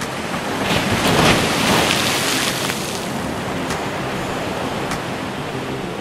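Small sea waves breaking and washing up over a sloped concrete seawall, with a louder surge of surf about a second in that then eases back to a steady wash.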